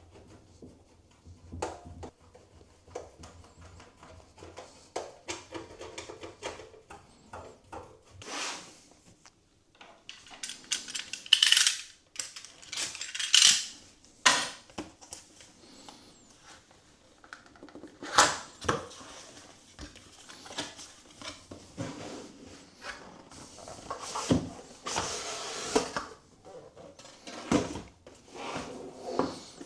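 Hands handling computer parts: irregular clicks and clinks of small hard objects, with several louder rustling bursts spread through, the loudest in the middle.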